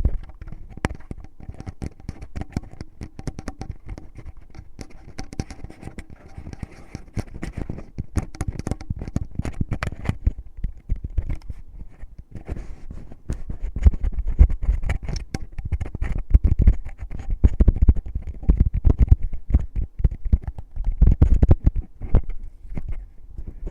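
Fingers rubbing and scratching at the ear of an ASMR microphone in finger ear-cleaning, a dense crackle of small rubs and scrapes. From about halfway on, heavier low thumps join in.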